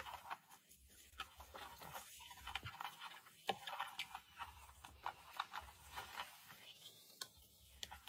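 Faint, irregular scratching and sharp ticks of a large cricket's legs scrabbling on loose coconut-fibre substrate and plastic, with one louder click about three and a half seconds in.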